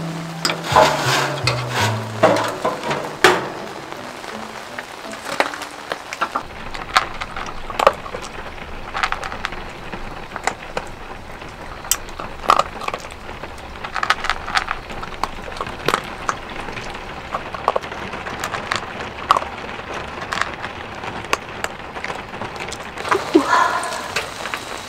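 Background music ends in the first few seconds with a few falling notes, then rain keeps up a steady patter, scattered with short sharp ticks and taps.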